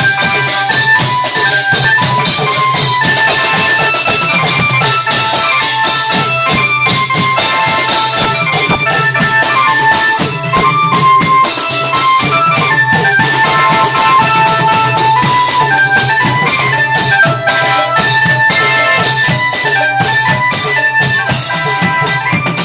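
Klong yao ensemble playing: Thai long drums and cymbals beat a fast, steady rhythm under a melody of short held notes.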